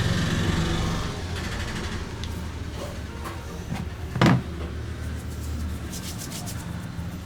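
Hands working during a barber's head massage, with one loud, sharp crack about four seconds in and a few faint clicks near the end, over a steady low hum.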